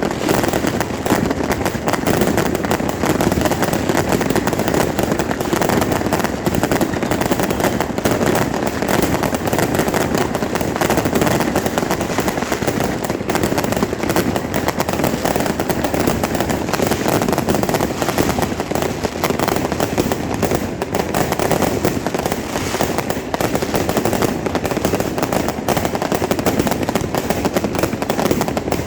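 Fireworks and firecrackers going off nonstop: a dense, continuous rapid crackle of bangs with no break.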